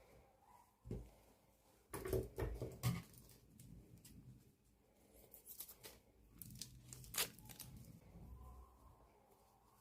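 Slime being squished and stretched by hand: sticky crackles and small pops, in clusters about two seconds in and again around six to seven seconds, the sharpest click just past seven seconds.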